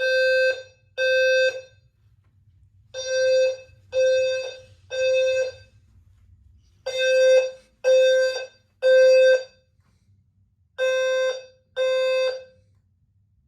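Fire alarm horn sounding the temporal-three evacuation pattern, set off by a manual pull station: groups of three half-second tones, one a second, with a pause of about a second and a half between groups. It stops suddenly after only two tones of the last group, near the end.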